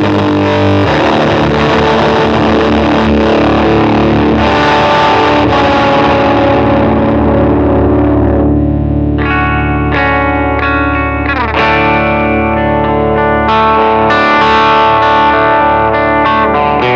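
Electric guitar played through an EarthQuaker Devices Tone Reaper silicon-germanium fuzz pedal. A thick fuzzed chord rings out, then about halfway through separate notes are picked with a thinner, brighter, less saturated tone.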